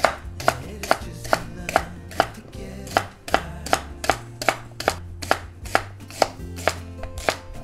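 Large kitchen knife chopping rhubarb stalks into small cubes on a wooden cutting board: an even rhythm of crisp cuts, a little over two a second, each ending with the blade knocking the board.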